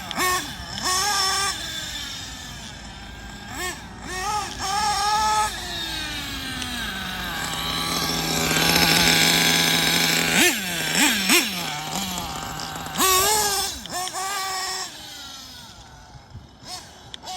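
Kyosho Inferno Neo ST 3.0's small nitro engine revving, its high whine rising and falling with the throttle. About halfway it drops to a steady low tone, then gets three quick throttle blips before it revs up and down again.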